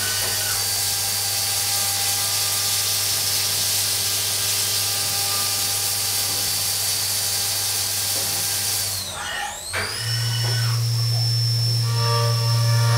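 Doosan DEM 4000 CNC mill cutting under flood coolant: a steady hiss of coolant spray and cutting, with a high spindle whine and a low hum. About nine seconds in, the whine drops and climbs again as the spindle slows and speeds back up for a new tool, and the cut goes on with a louder hum and several steady tones.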